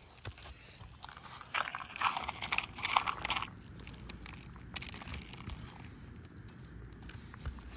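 Gritty crunching and scraping of asphalt roof shingles for about two seconds, starting a second and a half in, then a few faint scattered clicks.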